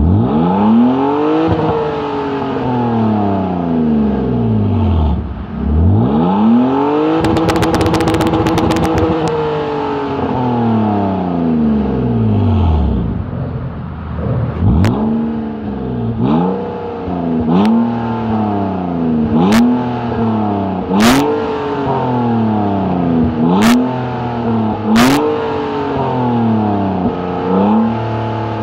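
BMW E39 523i's 2.5-litre inline-six revving through an Eisenmann dual-outlet exhaust. It gives two long free revs, the second held high for a couple of seconds with a rapid stutter. Then comes a string of quick throttle blips every second or two, several followed by sharp cracks as the revs drop.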